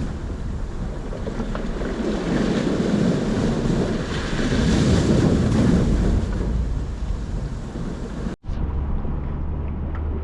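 Wind buffeting the microphone over surf on the beach, a steady rushing noise. It cuts out for an instant about eight seconds in and comes back duller.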